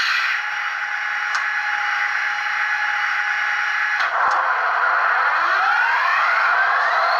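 Electronic diesel engine sound from an HO-scale Kato F40PH model locomotive's sound decoder, played through its small speaker while the model stands still: a steady buzzing engine hum, then after a click about four seconds in the pitch climbs as the engine revs up.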